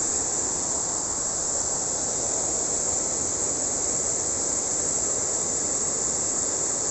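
Steady rush of water spilling over a low concrete weir into a river pool.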